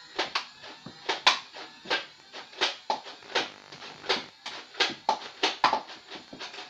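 Nerf Modulus ECS-10 flywheel blaster firing darts: a rapid, uneven series of sharp clacks, two or three a second.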